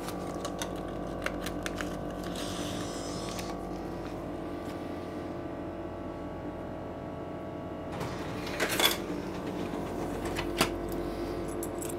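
Ice cream vending machine working through a purchase: a steady mechanical hum with a few light clicks, then a couple of knocks near the end as the item comes down to the delivery bay.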